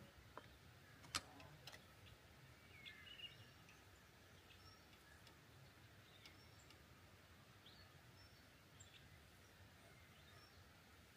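Faint, scattered bird chirps over a quiet background hum, with a sharp click about a second in and a couple of softer clicks around it.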